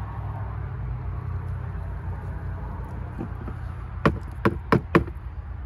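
Four quick, sharp knocks of hard plastic about four seconds in, as the chainsaw's orange plastic cover is handled. A steady low background hum runs underneath.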